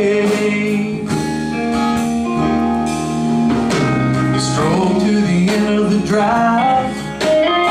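Live country band playing the instrumental break between a chorus and the next verse: drum kit with cymbals, bass and guitars carrying a melody line.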